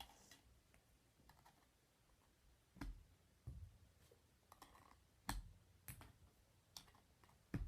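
Sparse light clicks and knocks, about seven of them, from small plastic toy basketballs being shot and bouncing off the hoop and hard surfaces.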